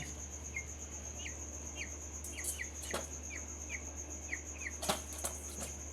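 Broiler chick peeping: a run of short, falling peeps, about two a second, over a steady high-pitched insect drone, with a couple of sharp knocks about three and five seconds in.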